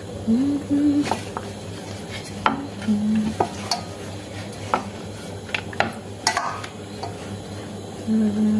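Wooden rolling pin rolling roti dough on a round wooden board, giving irregular light wooden clicks and knocks as the pin and board shift.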